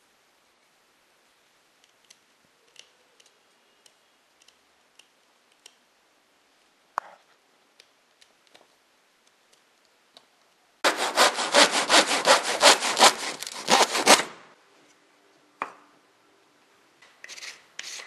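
Small hand saw cutting through a thin rod in rapid back-and-forth strokes for about three seconds, after scattered light clicks and taps of handling.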